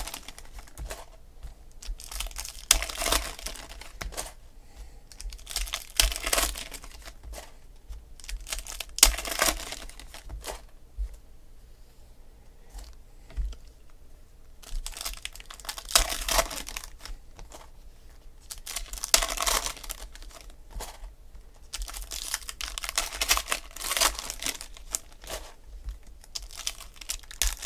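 Foil trading-card packs being torn open and crinkled, and the cards being handled and flicked into stacks, in repeated bursts of rustling a few seconds apart.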